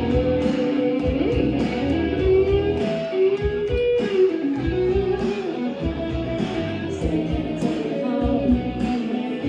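Live rock band playing an instrumental passage: electric guitar lead with notes that bend up and down, over bass and drums.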